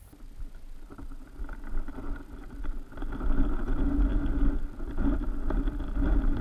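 Muffled sound of creek water recorded underwater: a low rumble with scattered clicks and taps, getting louder about three seconds in.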